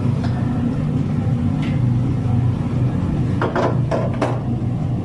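Chopped vegetables tipped from a steel tray into a steel mixing bowl, with a few short metal clanks about three and a half to four seconds in, over a steady low machine hum.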